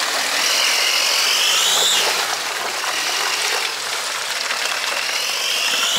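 Jeep Wrangler Rubicon working through an off-road rut: a whine rises in pitch over about two seconds, then rises again near the end, over a steady rush of tyre and mud noise.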